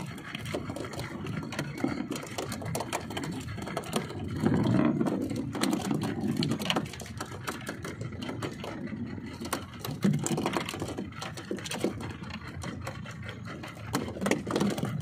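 Suzuki outboard motor running slowly at trolling speed, a steady rapid mechanical rattle over a low rumble, swelling louder for a couple of seconds about four seconds in.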